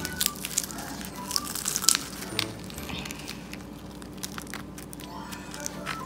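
Crisp, deep-fried kajjikaya pastry being broken apart by hand, its flaky crust crackling and crunching in a quick run of sharp cracks. The cracks are densest in the first two seconds, then thin out.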